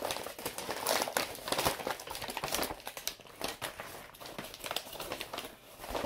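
Paper grocery bag crinkling and rustling as it is lifted out of a cardboard box and set down on a table, in irregular bursts of crackle, busiest in the first few seconds.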